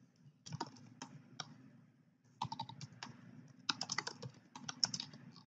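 Typing on a computer keyboard: quick runs of key clicks in about four short bursts.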